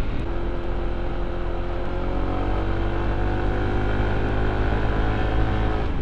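Honda ADV 160 scooter's single-cylinder engine pulling at steady high revs up a steep climb through its tuned CVT pulley set, over a low rumble. The engine note holds nearly level, easing slightly just before the end.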